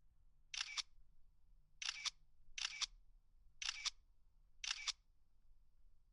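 Camera shutter firing five times, each a quick double click, spaced irregularly about a second apart.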